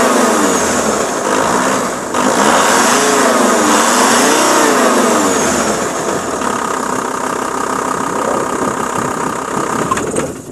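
Volkswagen Multivan's remapped 2.5 TDI turbodiesel, a five-cylinder, revved in quick rising and falling blips toward the redline. It then settles to a steady idle about halfway through, with a click near the end.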